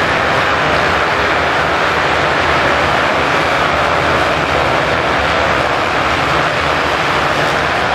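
Dozens of motocross bikes accelerating across the sand together at a race's mass start. Their engines merge into one loud, steady drone with no single engine standing out.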